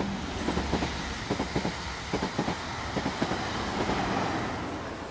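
Train running on rails: a low rumble and hiss with irregular clacks from the wheels, easing off near the end.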